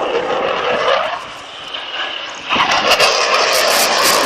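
Eurofighter Typhoon jet engines roaring overhead, swelling and fading, then surging suddenly louder about two and a half seconds in.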